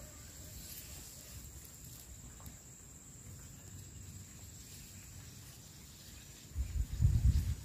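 Steady high-pitched drone of insects over a quiet outdoor background, with a burst of low rumbling near the end.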